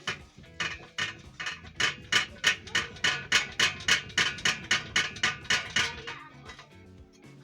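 A hammer striking metal in a rapid run of about twenty blows, roughly three a second, each with a short metallic ring; the blows stop about 6 s in. Background music plays underneath.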